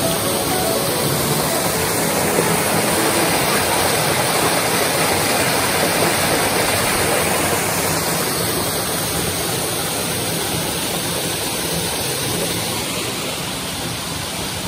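Steady rush of a waterfall cascading over rock ledges close by, growing a little fainter near the end.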